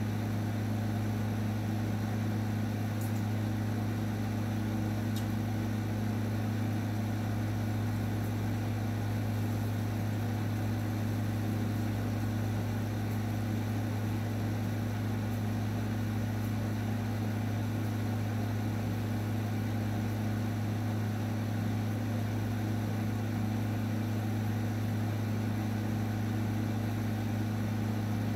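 Electric dog grooming clippers running with a steady, unbroken hum while trimming the dog's head and face.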